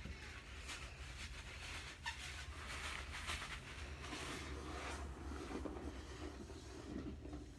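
Scrub sponge rubbing and swishing against a toilet bowl in foamy water: a steady scratchy scrubbing with a low hum underneath.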